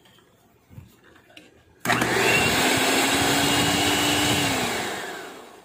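Electric hand mixer switched on about two seconds in, running steadily with its beaters in stiff-peaked egg-white meringue, then switched off, its pitch falling as the motor winds down near the end.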